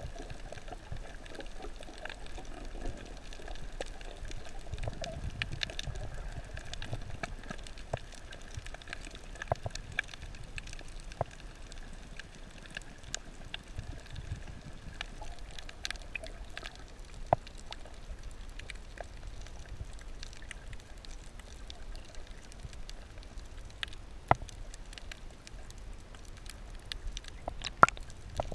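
Underwater ambience through an action camera's waterproof housing: a muffled wash of water with scattered sharp clicks and crackles.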